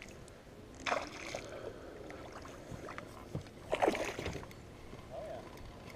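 Water splashing and sloshing as a hooked largemouth bass fights at the surface beside the boat, in two short bursts about a second in and around four seconds in.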